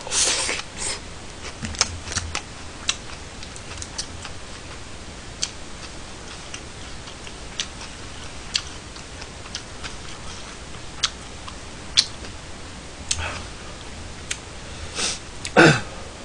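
A man eating close to a microphone: chewing and mouth noises, with scattered sharp clicks of utensils against plastic takeout containers. A short hissy slurp or sniff at the start, and a brief vocal sound falling in pitch near the end.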